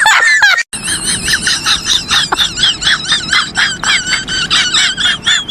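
A sound-effect clip: a gliding, wailing tone cuts off under a second in, then high-pitched squeaky chirps repeat rapidly, about three to four a second.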